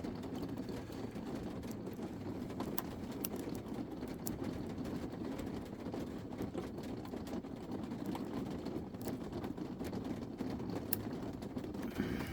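Small scattered clicks and scrapes of a lock pick and tension wrench working the pins of a pin-tumbler lock, over a steady low background rumble.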